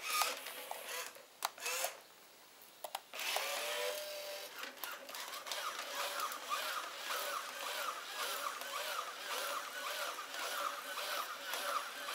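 WowWee Robosapien RS Media toy robot's small geared motors working as it moves: a few clicks in the first three seconds, then a steady whir with a repeating rhythm of about three beats a second as it walks.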